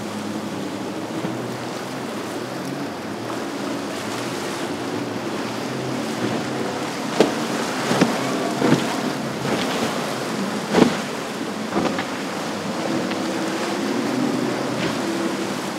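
Outboard engines of a Scout 420 LXF center-console boat running steadily through rough inlet waves, over the wash of surf and wind on the microphone. Several sharp thumps come in the middle stretch.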